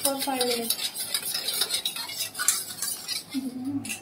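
A steel spoon stirring and scraping around a small stainless-steel bowl in a quick run of light clinks, mixing sugar water with pineapple essence.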